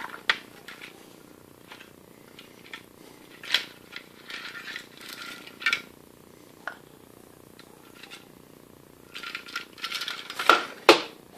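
Plastic tool case being opened and rummaged, with loose steel driver bits rattling and clacking inside, and the clicks of a hand impact driver and bit being picked up and set down. The clatter comes in short bursts, loudest near the end.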